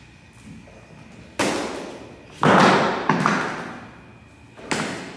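Practice swords knocking together in a stage fight: about five sharp knocks, the loudest about halfway through, each echoing briefly in a large hall.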